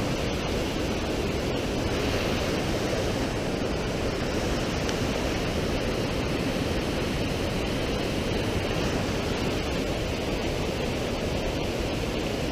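Mountain creek cascading over boulders: a steady rush of white water.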